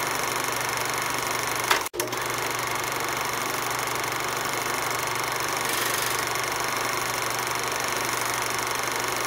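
Film projector sound effect: the steady running clatter of a projector mechanism, with a sharp click and a brief dropout about two seconds in.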